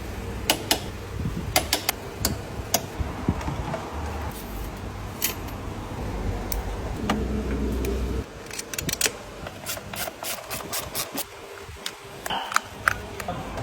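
Metal tools and engine parts clinking and clicking, irregularly, during hands-on work on the engine's timing chain, over a low steady hum that stops about eight seconds in.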